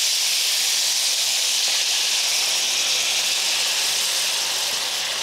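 Broth poured into a hot frying pan of oil, hissing and sizzling steadily as it hits the hot fat, easing off slightly near the end.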